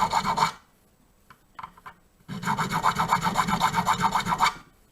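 A hand file rasping back and forth in quick, even strokes across a key blank, lowering the cuts of a home-made key. The filing stops about half a second in, a few light clicks follow, and it resumes for about two more seconds.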